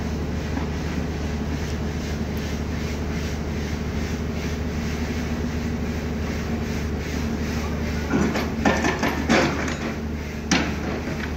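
Tracked excavator's diesel engine running steadily at a distance. About eight seconds in comes a burst of loud clattering knocks, and near the end one more sharp knock, as the bucket works against the rocky slope and rubble comes down.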